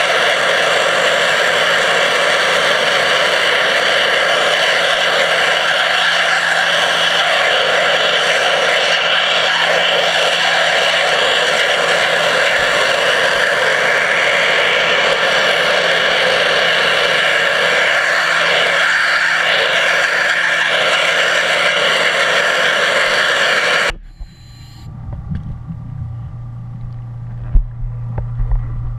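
Underwater pressure-washer jet blasting from the lance nozzle: a loud steady hiss with a faint hum beneath it. It cuts off suddenly about five seconds before the end, leaving a low rumble and one sharp knock.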